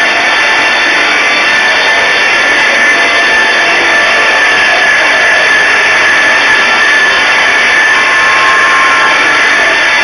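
Two-saw circular edging machine (SK-050) running, with a loud, steady high whine and rushing noise throughout.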